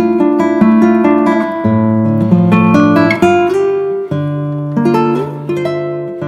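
Background music: an acoustic guitar plucking a melody over chords.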